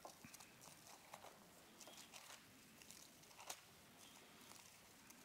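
Near silence with faint, scattered rustles and clicks of Bible pages being turned.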